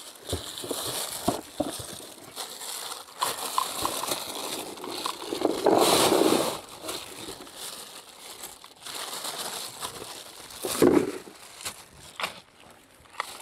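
Plastic bag holding harvested aronia berries rustling and crinkling as it is handled, with scattered clicks, a louder stretch about six seconds in and a short burst near eleven seconds.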